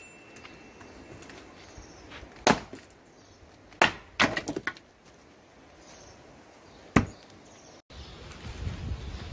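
An axe chopping firewood on a chopping block: three sharp chops spaced a second or more apart, the second followed at once by a quick run of cracking as the wood splits.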